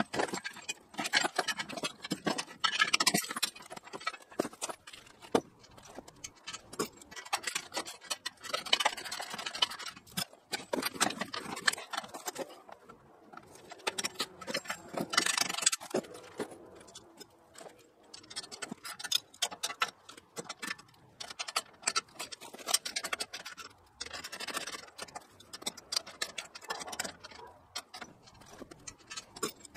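Hand ratchet wrench clicking in quick runs as bolts are tightened on a steel sawmill frame, with scrapes and knocks of metal parts in between.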